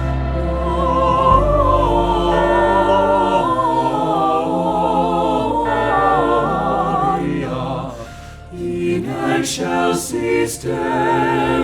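Choir singing slow, held notes with vibrato over a steady low accompaniment. About eight seconds in the sound dips briefly with a few sharp attacks, then the held voices return.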